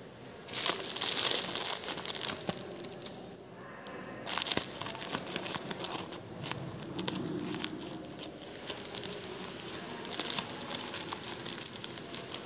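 Thin plastic wrapping crinkling and rustling in irregular bursts as it is handled and pulled open over the mouth of a jar.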